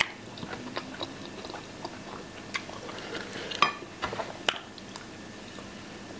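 People chewing and biting into toast and baked beans, close-miked mouth sounds, with a few sharp clicks scattered through, the loudest about three and a half seconds in.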